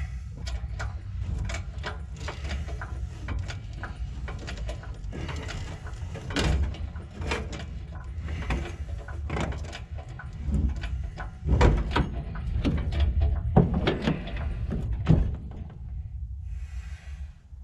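Engine being hoisted out of a 1967 Dodge D200 pickup on a chain: irregular metallic clicks, knocks and clanks as the hoist chain and the engine shift, the loudest clanks in the second half, over a steady low rumble.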